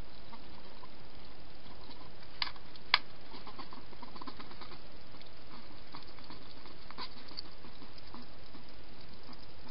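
Hedgehog eating at a feeding dish: a run of small crisp chewing and crunching clicks over a steady hiss, with two sharper clicks close together about two and a half and three seconds in.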